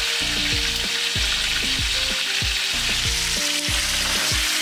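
Hot oil sizzling steadily around a whole spotted rose snapper frying in a pan. Background music with a beat plays underneath.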